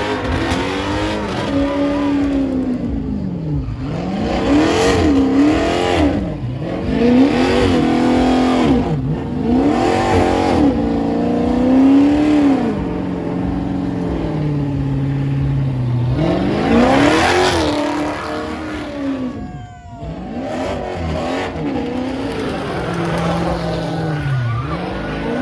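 Truck engine revving hard and dropping back again and again, roughly every two seconds, over the hiss of spinning tyres in a burnout.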